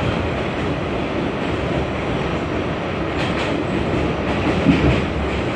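Kawasaki R68A subway car running along elevated track, heard from inside the car: a steady rumble with a few clacks of wheels over rail joints in the second half, while a second subway train runs close alongside on the next track.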